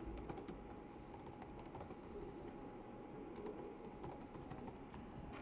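Computer keyboard being typed on, faint keystrokes in short irregular runs.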